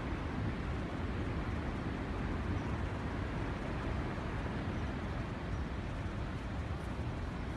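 Steady, deep rushing noise of a waterfall's falling water, even throughout with no breaks.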